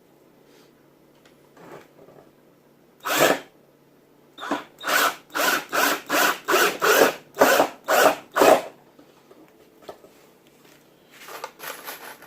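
Cordless drill driving a wood screw into pine, run in short trigger bursts: one burst, then about ten quick bursts roughly two a second, and a few lighter ones near the end.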